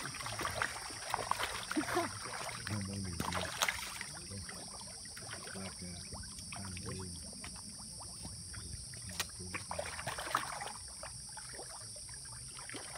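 A dense shoal of fish splashing and thrashing at the surface as they crowd a hand held in the shallows, with many small irregular splashes and slaps of water.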